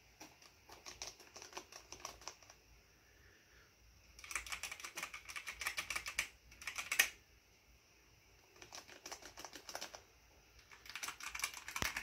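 Typing on two mechanical keyboards in turn: softer key clatter on the Alienware 510K alternating with louder, more clicky typing on the older Alienware AW768, back and forth twice.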